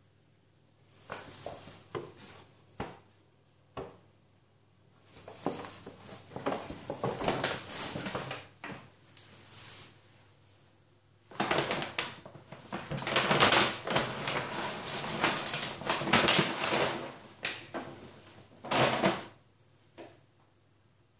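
Brown paper carrier bag rustling and crinkling as a cat wriggles and scrabbles in it. The sound comes in irregular bursts, a few short ones at first, then a longer run, and the longest, loudest stretch past the middle.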